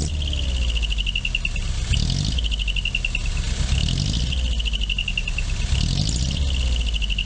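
Nissan Caravan E24 diesel engine running through a manifold-split (mani-wari) exhaust with a truck TY muffler. A steady low exhaust beat runs under a high, chirping whistle, the tuned 'naki' cry of the pipework, which comes in spells of about a second and a half roughly every two seconds.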